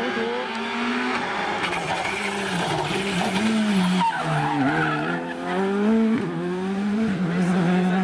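Rally car engine at racing revs on a stage pass-by: the pitch climbs, drops and climbs again through gear changes as the car approaches, goes past close by about four seconds in, and pulls away, with tyre noise on the bend.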